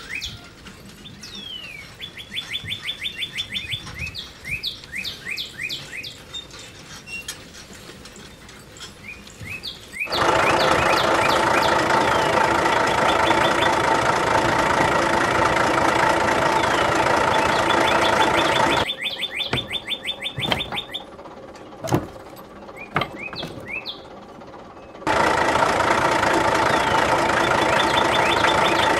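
Small birds chirping in quick repeated trills, then about a third of the way in a steady engine-like drone of the mini model tractor running starts and covers them. It stops about two-thirds through, leaving the birds and a single sharp click, and starts again near the end.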